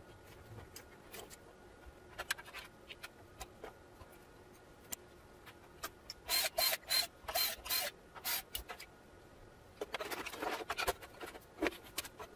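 Tools and parts being handled on a workbench: scattered light clicks, then runs of louder scraping and rattling about six seconds in and again near ten seconds.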